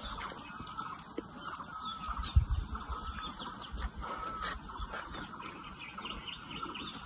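Birds chirping faintly in many short calls, over a low rumble, with a single thump about two and a half seconds in.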